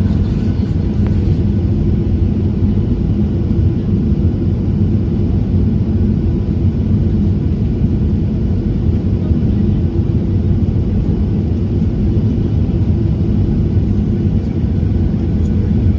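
Boeing 737-900 cabin noise: the steady rumble of the twin CFM56 jet engines and airflow heard from inside the cabin, with a constant low hum and no sudden events.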